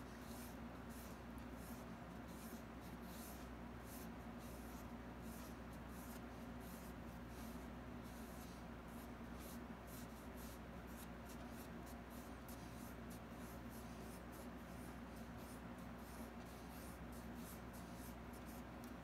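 Thin paintbrush drawn over a canvas in short, faint brushing strokes, a few a second, as fine strands of hair are painted in. A steady low hum runs underneath.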